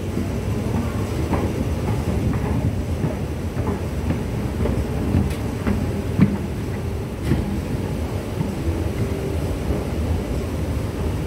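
Station escalator running, a steady low rumble with scattered light clicks and clacks from the moving steps.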